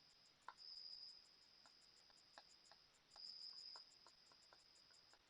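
Faint insect chirping: a high trill that swells and fades three times over a rapid, faint pulsing, with a few soft clicks in between.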